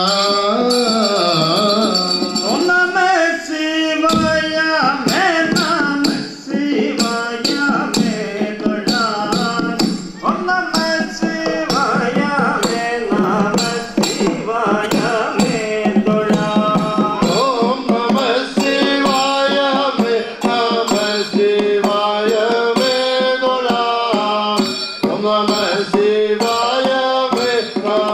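Padayani music: men's voices singing a Padayani song, with fast, steady hand-drum beats underneath.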